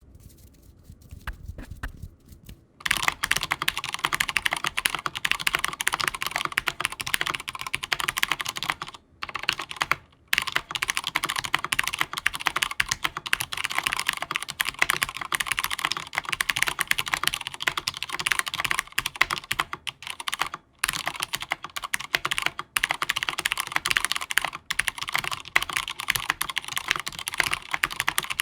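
A stock Durgod Taurus K310 mechanical keyboard with Cherry MX Brown tactile switches being typed on rapidly, a dense run of keystrokes. The typing starts about three seconds in and breaks off briefly a few times along the way.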